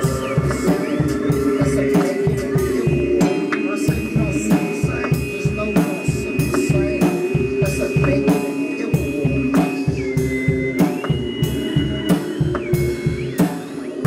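Live screamo band playing: a drum kit beating steadily at about four hits a second over sustained droning guitar tones, with a high held tone that slides up and down between pitches.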